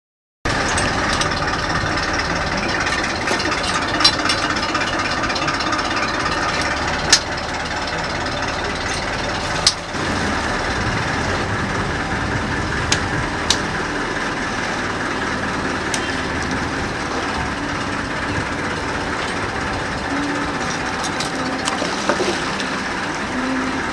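A fishing boat's engine running steadily, with a few sharp knocks and clicks now and then.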